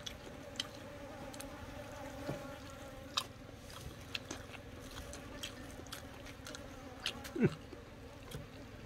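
Flies buzzing around the food in a faint, steady drone, with scattered soft clicks from eating by hand. About seven and a half seconds in comes a short falling tone, the loudest moment.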